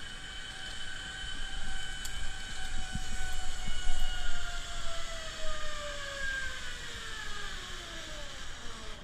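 Zip-line trolley pulleys running along the steel cable as a rider slides away: a steady whine over a hiss, its pitch falling over the last few seconds.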